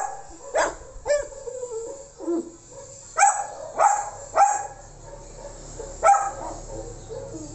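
A dog barking in short, sharp barks, about seven of them at irregular intervals.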